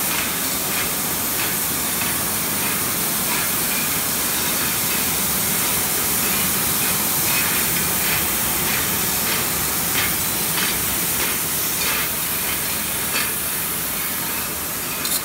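Gas burner flames on a glass beaker making machine hissing steadily as they heat the turning glass tubes, with light clinks from the machine and glass about once a second.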